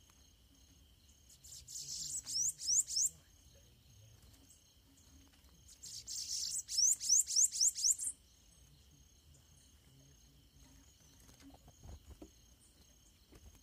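Bananaquits singing in a territorial dispute: two high, buzzy song bursts of about two seconds each, the second a little longer, each ending in a run of quick upward-sweeping notes. Insects trill steadily underneath.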